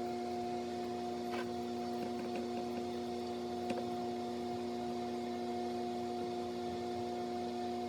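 A steady hum made of several even pitches, with a few faint ticks.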